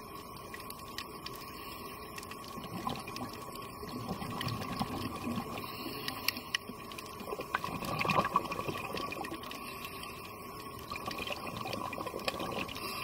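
Underwater recording: the bubbling of a diver's exhaled air swells up about every four seconds, with the loudest burst near the middle. Under it run a steady hiss, a faint steady tone and scattered faint clicks.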